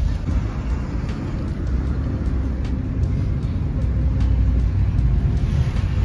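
Road and engine rumble heard from inside the cabin of a moving Maruti Suzuki Ertiga, a steady low drone with tyre hiss over it.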